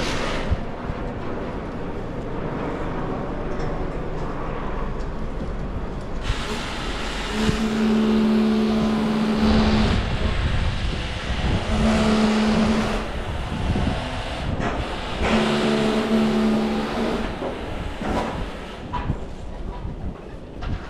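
City traffic rumbling past, with a low horn-like tone sounding three times in long blasts, the first about two seconds long.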